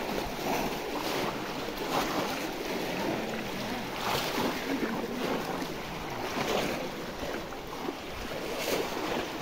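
Muddy water sloshing and splashing as many people wade through a shallow pond, working bamboo cone fish traps, with wind on the microphone.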